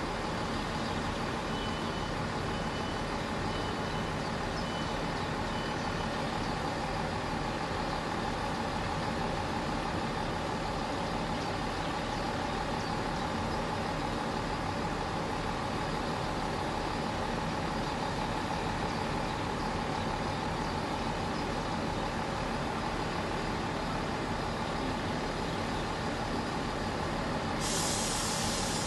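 Class 158 diesel railcar standing at the platform with its diesel engines idling steadily. A few seconds in there is a short run of faint high beeps. About a second before the end a sudden hiss of compressed air starts, as the brakes are released ahead of departure.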